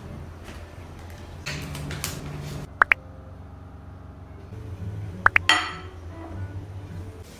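Light clinks of tableware set down on a tabletop: two sharp double clinks with a short ring, about two and a half seconds apart, the second followed by a brief rustle.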